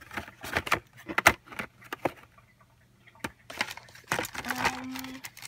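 Plastic blister packs of car vent sticks being handled and set down in a plastic drawer: a run of clicks and knocks, the sharpest a little over a second in, then a pause and one more click.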